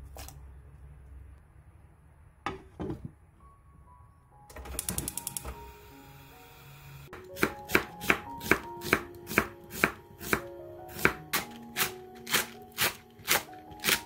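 Kitchen knife chopping onion on a wooden cutting board, a sharp knock about twice a second, starting about halfway through. A few scattered knocks and a short quick rattle come before it.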